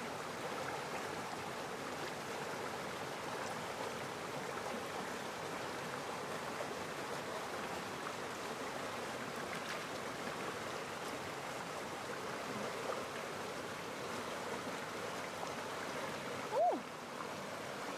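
Running water of a stream, a steady rushing, with a short loud sound falling in pitch near the end.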